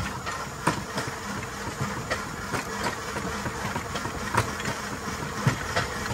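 Rail bike rolling along the railroad track while coasting: a steady rolling noise with irregular clicks and knocks.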